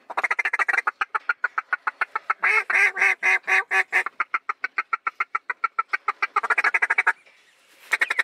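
A hunter's hand-blown waterfowl call sounded in fast strings of short, reedy notes, many a second, calling to ducks in flight. The runs ease off in the middle, go quiet briefly near the end, then start again loudly.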